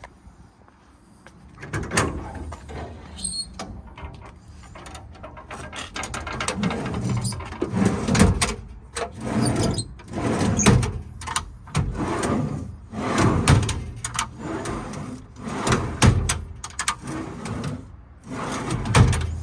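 Metal compartment doors and drawers of an IMT service truck body being opened and slid out, making a series of clanks, rattles and sliding knocks about every second.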